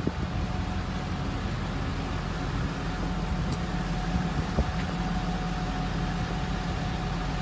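Tow truck engine idling steadily, a constant low hum with a faint higher tone above it.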